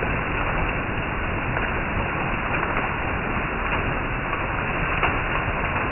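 Heavy rain pouring steadily onto garden leaves and a roof, a dense, even hiss with a few louder drops standing out.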